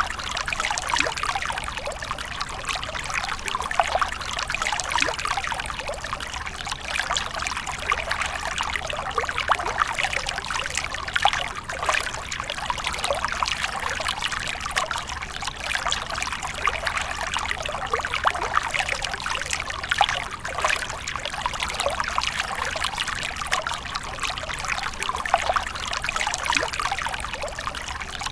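Water splashing and trickling steadily, a continuous stream of small splashes.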